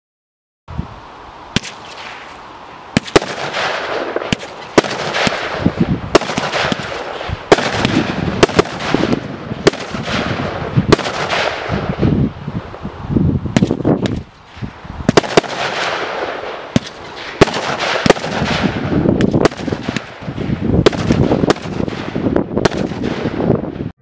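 Zeus Fireworks Cosmic Rain barrage cake firing: a rapid run of sharp bangs, roughly one or two a second, each followed by a rush of hissing noise. It starts about a second in, with a short lull about halfway through.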